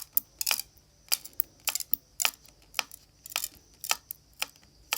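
Irregular run of short, sharp clicks and light scrapes from small hand tools and plastic parts being worked on a smartphone opened for repair, about two or three a second.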